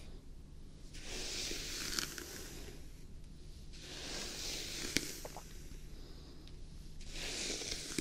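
Hairbrush drawn through long hair close to a binaural microphone: three slow rustling swishes about three seconds apart, with a light click at the end of two of them.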